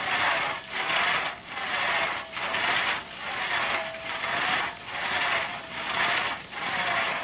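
Handsaw cutting wood in steady back-and-forth strokes, a little more than one a second, each stroke a rasping scrape with a faint ringing of the blade.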